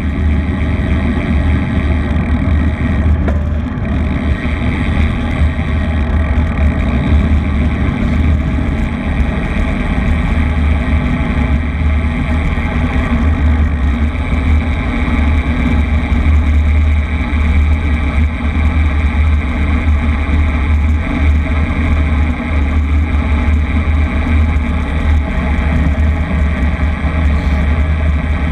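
A vehicle engine running steadily at an even cruising speed while on the move, with a strong deep rumble underneath.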